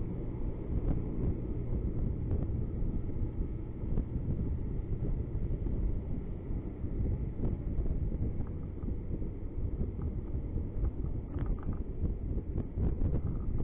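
Car driving slowly through town, heard from inside: a steady low rumble of engine and road noise picked up by a dashcam microphone.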